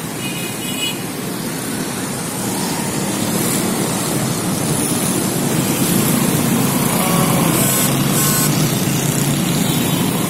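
Road traffic on a city street: a steady noise of cars, motorbikes and auto-rickshaws passing, growing slightly louder over the first few seconds.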